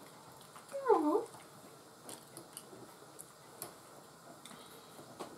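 A house cat meows once, a short call that dips and then rises in pitch, about a second in. Faint clicks of cutlery on plates follow.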